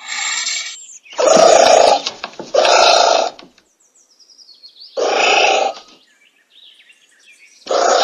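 Four short rough animal calls, each under a second: two close together early on, then two more a couple of seconds apart, after a longer call that ends just under a second in. Faint high chirps sound in the gaps between them.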